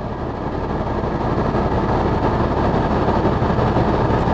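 Jaguar XF's 3.0-litre V6 diesel engine running steadily during a forced diesel particulate filter regeneration: a low hum under a broad rushing noise that grows slightly louder over the first couple of seconds.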